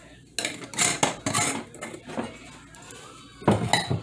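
Stainless steel saucepan of water and tea bags being handled on an electric stove: a run of scraping clatters in the first second and a half, then a louder clank with a short metallic ring about three and a half seconds in.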